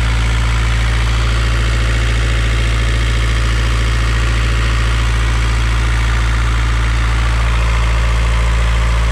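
Volvo Penta D2-55 four-cylinder marine diesel running steadily, heard close up in its engine compartment. It is a test run after the return fuel line was replaced, with no fuel leaking.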